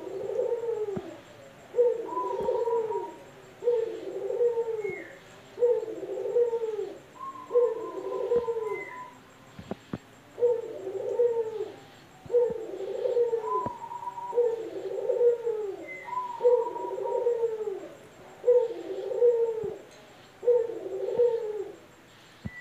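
Male ringneck dove (Barbary dove, 'puter') cooing over and over, a low rolling coo about once a second with a short break about nine seconds in. A few faint clicks fall between the coos.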